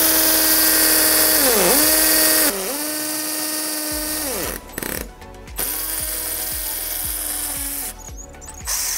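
INGCO 20V cordless impact drill in hammer mode drilling into a concrete wall with a masonry bit: a steady motor whine with a loud rasping hammer rattle, the pitch dipping and recovering once about two seconds in. The drill stops about four seconds in, gives two short blips, then runs steadily again for about two seconds before stopping near the end.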